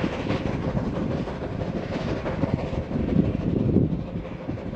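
South African Railways Class GMAM 4-8-2+2-8-4 Garratt articulated steam locomotive working hard with a train of tank wagons: a steady run of rapid exhaust beats over the rumble of the running gear, swelling a little about three seconds in.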